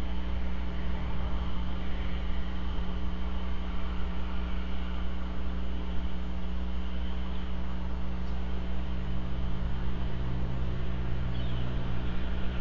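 Steady low hum made of several constant tones, over an even hiss.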